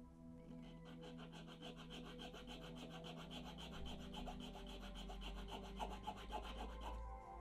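Needle file scraping back and forth across a diecast metal model car casting, filing away hardened superglue and baking-soda filler at the window pillars. Quick, even strokes that start about half a second in and stop about seven seconds in.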